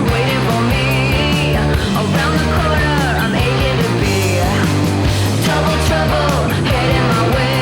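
Background rock music with distorted guitars, a steady bass line and a singing voice.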